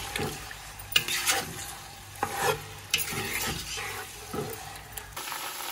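Chicken pieces sizzling as they fry in oil in a nonstick pot, stirred with a wooden spoon that scrapes and knocks against the pan several times.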